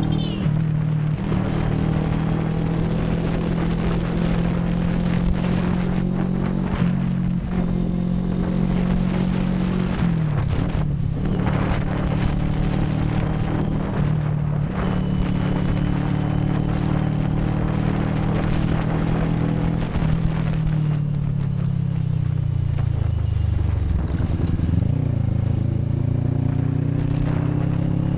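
CFMoto 400NK motorcycle's 400 cc parallel-twin engine running steadily on the move. Its pitch drops and climbs back about ten seconds in, and again a few seconds before the end, as with a gear change or easing off the throttle.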